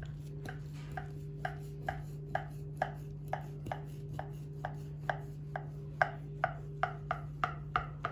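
Large kitchen knife cutting through a baked semolina cake in a glass baking dish, the blade knocking against the glass about twice a second, each knock with a short ring. A steady low hum runs underneath.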